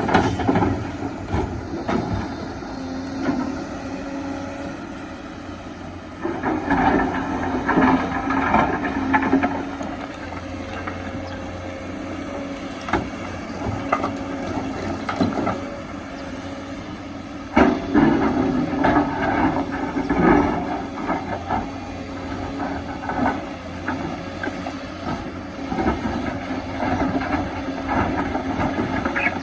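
Kobelco excavator's diesel engine running steadily while it digs, with rocks scraping and clattering against the steel bucket. Two louder spells of knocks and grinding come about six seconds in and again about eighteen seconds in.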